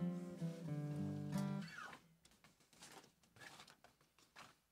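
Acoustic guitar and violin holding a final chord, which stops about two seconds in; then only faint rustling and small knocks.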